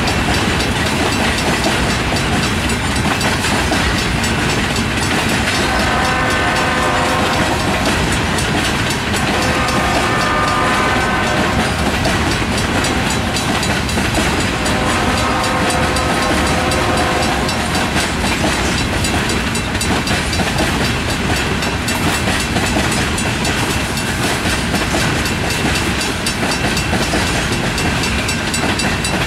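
Freight cars rolling steadily past over a grade crossing, wheels clacking on the rail. A locomotive horn sounds three times in the first half, the last blast the longest.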